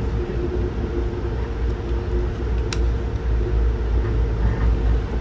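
Steady low rumble of a passenger train running at speed, heard from inside the coach, with a freight train passing close alongside; a single sharp click about two and a half seconds in.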